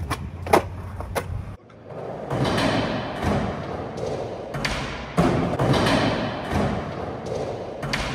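A skateboard on concrete, with the board clacking and slapping down in a few sharp hits, the loudest about half a second in. After a short drop in level, skateboard wheels rumble over wooden skatepark ramps, with repeated thuds as the board hits the ramps.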